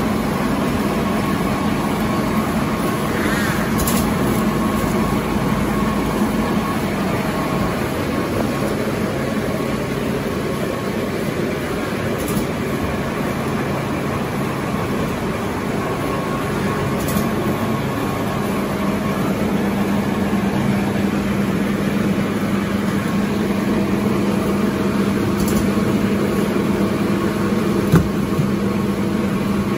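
Automatic glue-lamination napkin tissue production line running: a continuous mechanical drone with a steady low hum and a faint higher tone, a few light clicks, and one sharp knock near the end.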